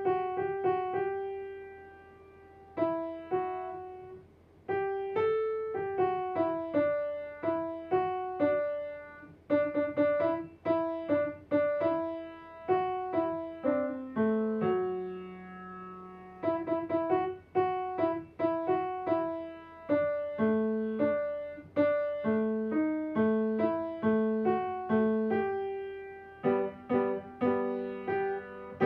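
Kawai grand piano being played from sheet music: a slow melody of single notes and chords, each fading after it is struck. There are two short pauses near the start and a low note held for about two seconds midway.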